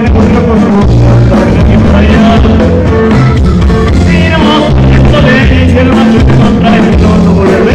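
Live band music played loud over a PA: electric guitars, bass notes and a drum kit keeping a steady beat, with a voice singing.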